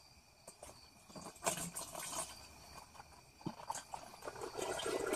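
Dark used transmission fluid poured from a plastic jug through a funnel into a plastic container: faint pouring with a few light taps, growing louder near the end.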